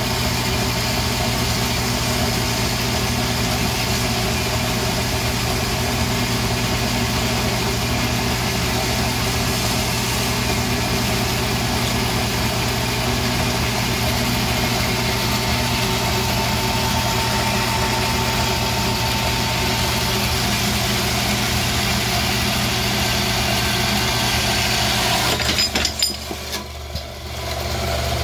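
Tormach AF50 horizontal bandsaw running steadily, its blade cutting through a 3-inch square aluminum bar. Near the end the sound drops off for a couple of seconds with a few clicks, then the steady running comes back.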